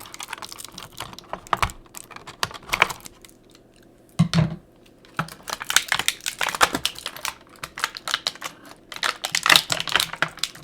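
Toy boxes and plastic packaging being handled and opened by hand: rapid irregular clicks and rustles, with a short pause and a single low thud about four seconds in.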